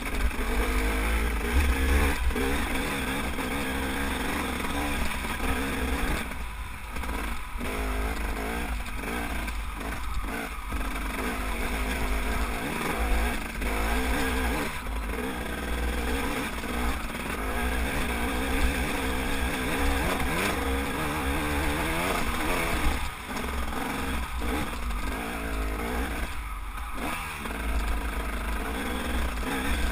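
Dirt bike engine running under load on a rough uphill trail, its pitch rising and falling with the throttle and dropping off briefly several times, with wind rumbling on the microphone.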